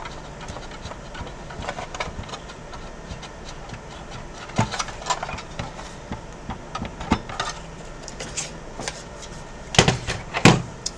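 Scattered clicks and knocks of hands taking apart an Xbox One S console and lifting out its disc drive, with two louder knocks near the end.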